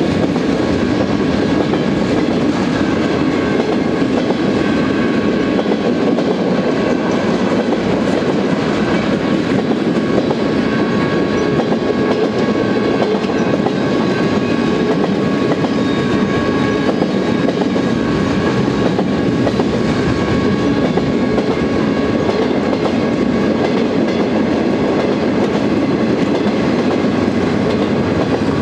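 Freight train cars loaded with military equipment and containers rolling past a grade crossing: a steady rumble with wheels clattering over the rails. Faint steady high tones sit above the rumble.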